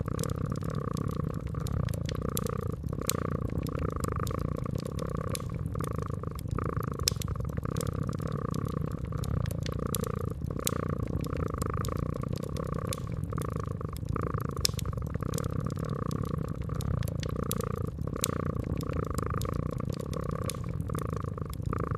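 Domestic cat purring steadily, rising and falling about once a second, with the sharp pops and crackles of a wood fire scattered throughout.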